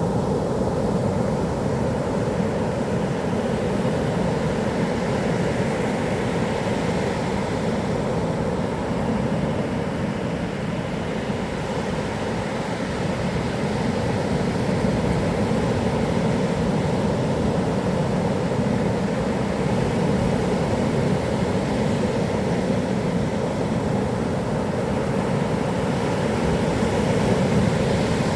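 Heavy typhoon swell breaking on a sand beach, a steady unbroken wash of surf noise, strongest in the low range, with no separate crashes standing out.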